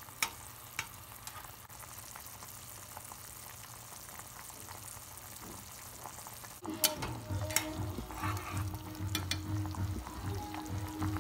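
Rice-flour noodles boiling in a small saucepan on a gas burner: a steady bubbling hiss, with a few light clicks of chopsticks against the pan near the start. About two-thirds of the way through, background music with a low pulsing beat comes in over it.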